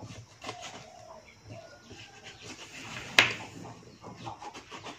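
Knife work on fish on a cutting board: small scrapes and taps, with one sharp knock about three seconds in. Faint bird calls sound in the background.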